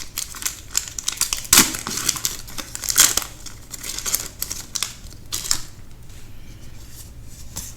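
Foil wrapper of a Magic: The Gathering set booster pack crinkling and tearing as it is opened: dense crackling for the first three seconds with two louder rips, then sparser crinkles as the pack is handled.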